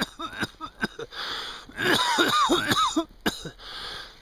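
Wordless voice sounds: a string of short, sliding vocal hoots and grunts with brief pauses between them.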